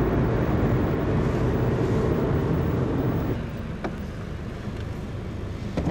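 A road vehicle running on the move, steady engine and road noise with a low hum, dropping to a lower level about three seconds in, with a couple of light clicks near the end.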